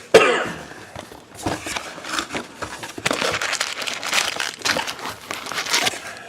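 Packaging of a sealed box of hockey trading cards crinkling and tearing as it is opened by hand, with a sharp loud rip just after the start and irregular rustling after it.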